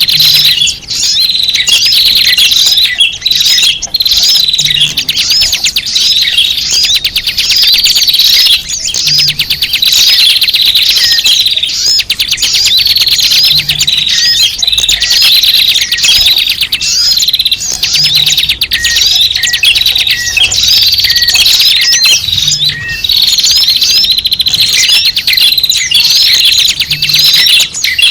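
A loud, dense chorus of many small birds chirping and twittering at once, quick overlapping high chirps and trills without a break: a recorded lure call used to draw small birds in for trapping.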